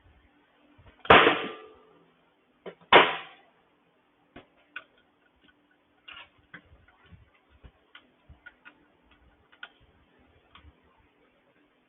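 Two sharp metallic clanks about two seconds apart, then light scattered clicks and taps of small metal engine parts and hand tools being handled during reassembly of a Honda GCV160 engine, over a faint steady hum.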